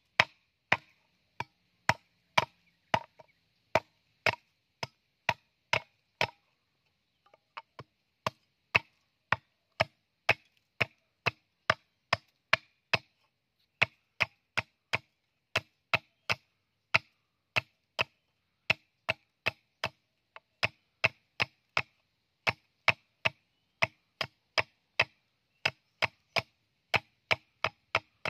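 Machete blade chopping at a small bamboo cup: a steady run of sharp, ringing knocks on bamboo, about two a second, with a short pause about six seconds in.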